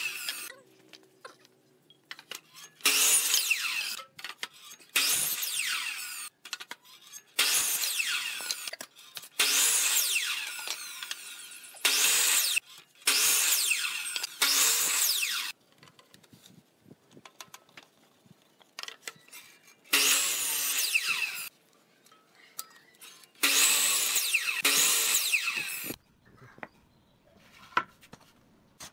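Electric compound miter saw cutting wooden boards into short pieces: about ten short cuts, each a second or so of the spinning blade biting through the wood, with short pauses between them and a longer pause in the middle.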